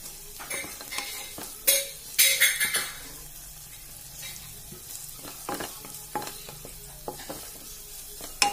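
Chopped garlic and green chilies sizzling in butter in a pan while a wooden spatula stirs and scrapes through them in repeated strokes. The loudest bursts of scraping and sizzle come a little under two seconds in and again between two and three seconds.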